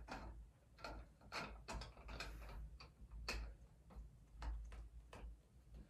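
Faint, irregular clicks and light ticks from a telescopic doorway pull-up bar being twisted and fitted into place in a door frame.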